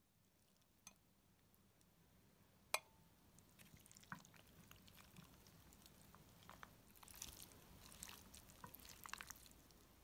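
Plastic serving tongs scooping baked pasta out of a ceramic baking dish: a few sharp clicks of the tongs against the dish, the loudest about three seconds in, then soft sticky squishes and small crackles of the food over the last few seconds.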